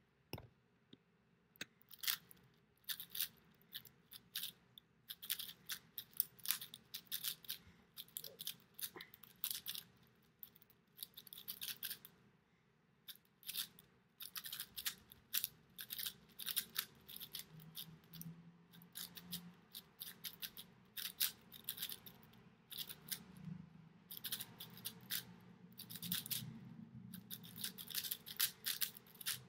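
Celeritas MGC 6 6x6 speed cube being turned fast in a solve: rapid plastic clicking and clacking of layer turns. The clicking starts about two seconds in and comes in bursts of a second or two, broken by short pauses.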